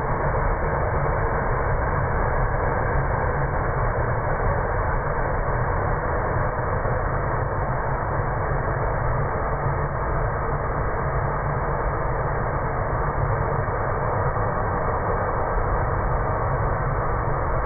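Propane torch burning at full flame, a steady, unbroken rush with a deep low rumble.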